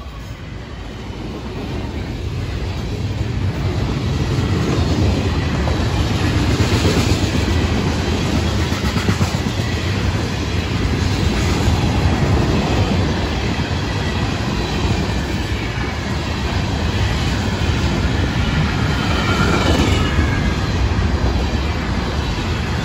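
Freight train rolling past at close range: the steady rumble and clatter of steel wheels on the rails as tank cars and covered hoppers go by. It builds over the first few seconds and then holds.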